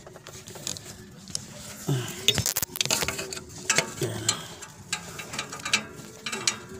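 Light metallic clicks and clinks, irregular and spaced out, of hand tools and a replacement oxygen sensor being fitted into the exhaust manifold.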